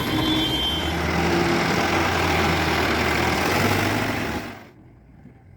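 Heavy diesel engine running steadily, which cuts off abruptly about four and a half seconds in, leaving only faint background sound.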